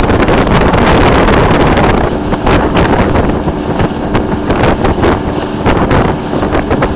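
Heavy wind buffeting the microphone on a fast-moving motorboat, over the boat's motor and rushing water. The buffeting eases slightly about two seconds in.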